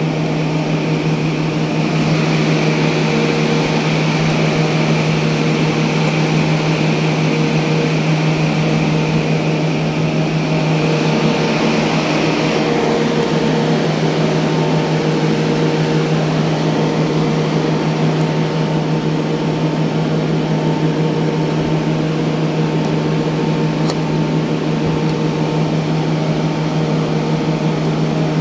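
Steady mechanical drone of a running machine: a low hum with a few fainter higher tones over a hiss, unchanging throughout, with a brief swell of hiss about twelve seconds in.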